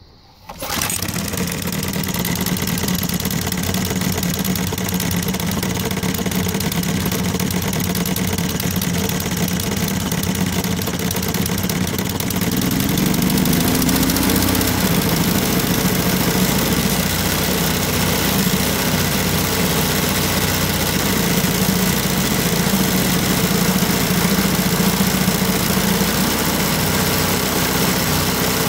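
Cold start of a McLane 20-inch reel mower's 3.5 hp Briggs & Stratton single-cylinder engine: it catches within about a second of the starter-rope pull and settles into steady running. About halfway through, its note shifts and it runs slightly louder as the throttle lever is moved.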